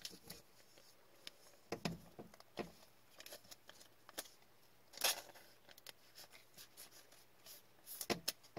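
Faint handling sounds of gloved hands turning a trading card and setting it against a card stand: scattered light clicks and taps, with a brief swish about five seconds in and a few more clicks near the end.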